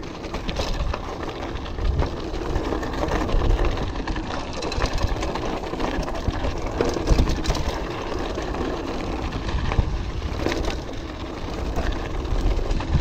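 Orbea Alma hardtail mountain bike ridden over rocky trail: tyres crunching over rock and gravel, with the bike's chain and frame rattling in frequent clicks and knocks over the bumps, under a steady low rumble.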